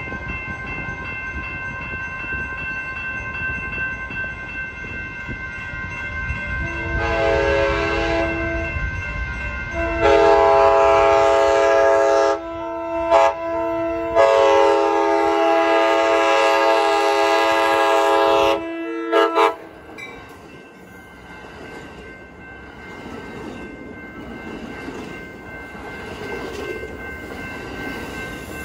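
Amtrak Pacific Surfliner train horn sounding the grade-crossing pattern as the train approaches: two long blasts, a short one and a final long one, then two quick toots, over a steady tone from the crossing signals. After that the train runs past close by with a rumble and clatter of wheels on the rails.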